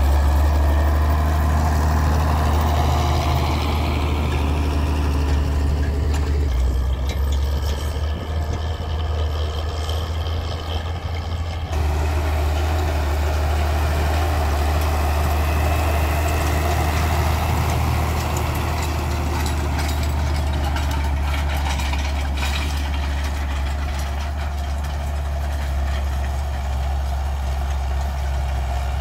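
Zetor 16145 tractor's six-cylinder turbo diesel running steadily under load while pulling a harrow across a field, with a strong, low drone. The sound changes abruptly twice, about six and twelve seconds in, as the recording cuts between passes.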